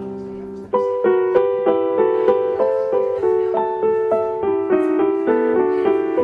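Background solo piano music: a held chord, then from under a second in a melody of single notes struck about three times a second.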